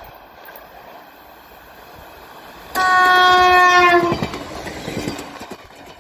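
Stadler DP1 diesel multiple unit approaching and sounding one loud horn blast about a second and a half long, dipping slightly in pitch at the end as it passes. This is followed by the clatter of its wheels over the rail joints as it goes by.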